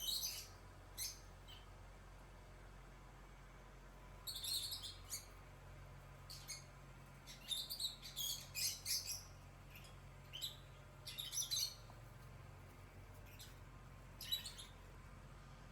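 High-pitched chirping calls in short scattered bursts, thickest through the middle, over a faint steady low hum.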